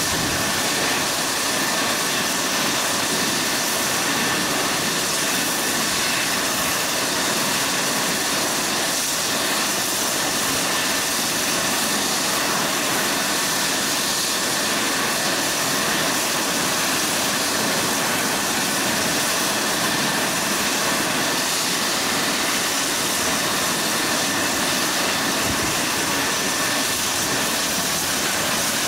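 Eurocopter EC135 twin-turbine helicopter running on the ground with its main rotor and Fenestron tail rotor turning: a steady turbine whine over rotor noise, unchanging throughout.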